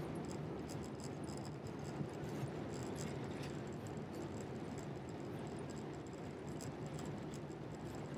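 Airliner cabin noise as the plane taxis: a steady low rumble with faint, irregular rattling ticks from the cabin fittings.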